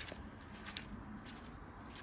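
Footsteps on a woodland path: a series of short, crisp crunches a few times a second, over a low rumble.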